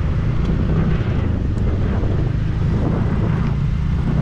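Riding on a scooter at low speed: a steady, loud low rumble of the engine and road, with wind buffeting the microphone.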